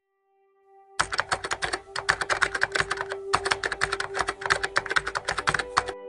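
Rapid computer-keyboard typing clicks, starting about a second in and stopping just before the end, the kind of typing effect laid under a title being typed out. A faint held musical tone sounds underneath.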